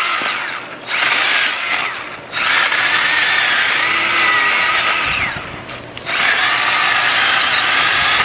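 Milwaukee M12 Fuel cordless mini chainsaw running as its chain cuts into a branch: a high electric whine that starts and stops four times, winding down in pitch each time the trigger is let off.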